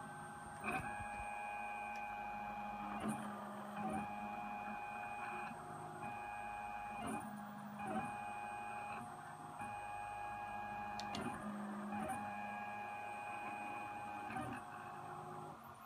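Drawing CNC machine's stepper motors whining steadily as they drive the pen. The tone holds for a second or two, then briefly breaks and shifts as each move ends and the next begins.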